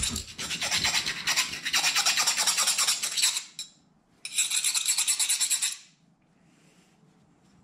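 A metal file rasped rapidly back and forth across a freshly quenched 80CRV2 steel knife blade in quick dry strokes. It stops about three and a half seconds in, then starts again for about a second and a half.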